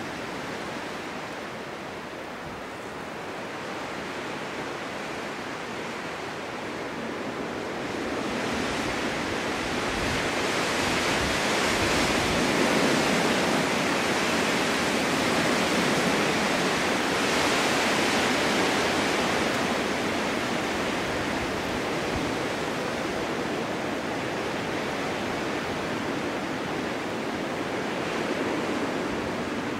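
Wind blowing through a snow-covered forest in a snowstorm: a steady rushing that swells into a stronger gust about eight seconds in, holds for around ten seconds, then eases back.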